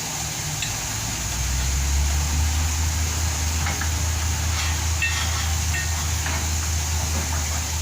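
Backhoe's diesel engine running with a steady low drone that gets louder about a second and a half in, as if throttled up, then holds.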